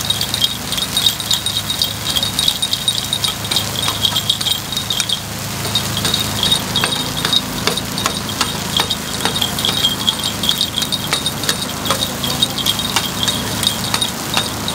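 Metal picks clicking and ringing against a takoyaki pan as the balls are turned, a dense irregular run of small metallic clicks, with a steady low hum underneath.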